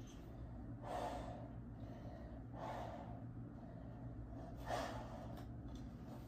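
A man breathing hard after a set of push-ups: three heavy breaths spaced a couple of seconds apart.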